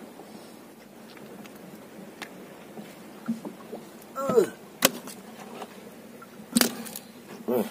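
Gill net being hauled into a small boat and fish picked from it: scattered clicks and knocks of net, fish and gear against the hull over a low steady wash, with two sharp knocks in the second half. Two short voice sounds falling in pitch, one just past the middle and one near the end.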